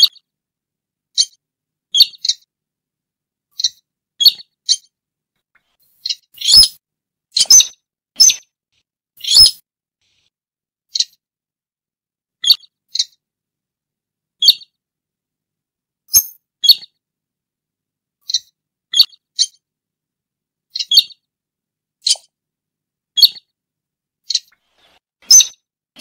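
Burung sintar, a rail, giving short sharp calls, singly or in quick pairs, repeating about every one to two seconds.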